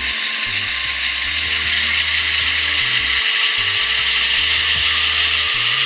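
Model Union Pacific U50 locomotives running by, their motors and gears giving a steady high whine that grows louder near the end. Background music with a low bass line plays underneath.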